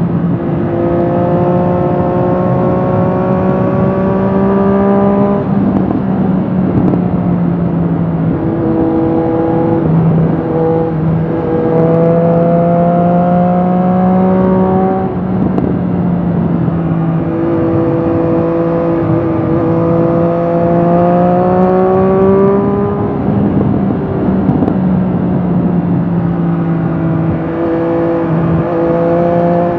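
Triumph Street Triple RS 765 cc inline-three engine through an Akrapovic slip-on exhaust, heard from the rider's seat while riding. The engine note climbs slowly under throttle, breaking off and picking up again several times.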